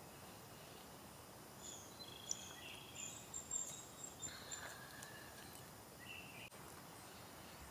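Faint wild birdsong: several thin, short whistled notes and trills between about two and six seconds in, over a soft outdoor hiss.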